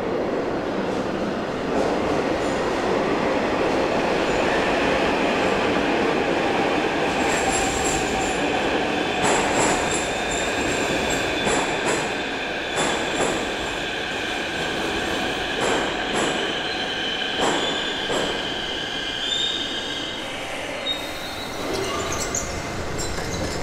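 Kyiv metro train pulling into the station and braking: a steady rumble with high-pitched wheel squeal, and a run of clacks over the rails from about seven seconds in that thins out towards the end.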